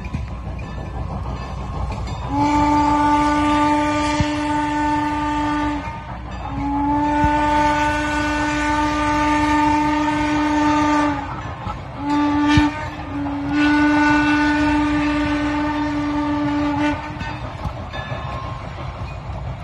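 Steam whistle of Strasburg Rail Road locomotive No. 382 blowing four blasts, long, long, short, long. This is the standard grade-crossing signal. Each blast is a single steady pitch that scoops up slightly as it starts, over a steady low rumble.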